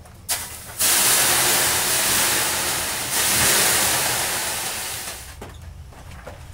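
Water thrown onto the hot stones of a Finnish sauna stove, hissing into steam (löyly) in two surges, each fading over about two seconds.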